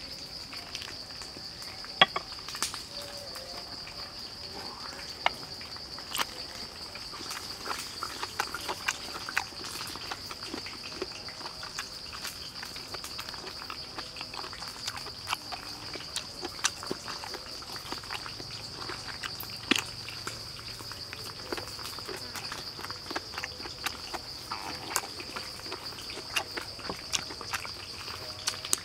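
Insects droning steadily at one high pitch, with many short sharp clicks and smacks from hands tearing at and mouth chewing roasted pork skin.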